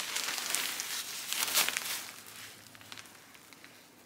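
PEVA plastic tablecloth with a thin fabric backing crinkling and rustling as it is handled, with small sharp crackles. It dies down about two seconds in, leaving only a few faint ticks.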